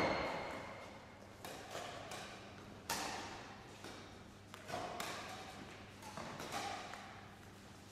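Badminton racket hitting the shuttlecock in a drop-shot rally: sharp knocks about every second and a half, each echoing in a large sports hall.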